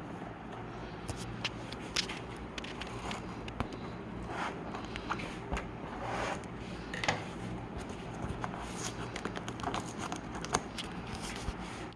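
Rustling, scraping and clicking of a product box and its packaging being handled and opened, in irregular short bursts over a steady low hum.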